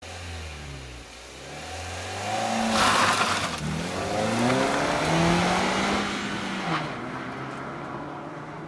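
Second-generation Mazda Demio's 1.5-litre four-cylinder engine revving hard as the car is driven around cones, its note rising and falling with the throttle. A short burst of tyre squeal comes about three seconds in, and the engine note drops shortly before the end and runs on more quietly as the car pulls away.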